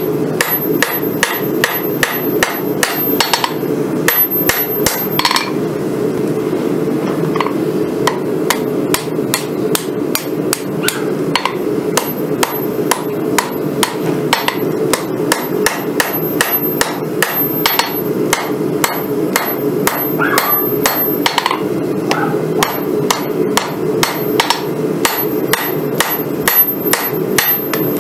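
Hand hammer striking a glowing San Mai Damascus billet on a steel anvil, a steady run of sharp blows, with a short stretch of fewer strokes a few seconds in. A constant hum runs underneath.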